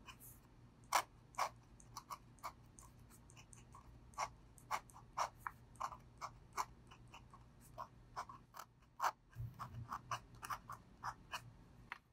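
Steel Brause Steno dip-pen nib scratching on paper in short, irregular strokes while writing Korean handwriting.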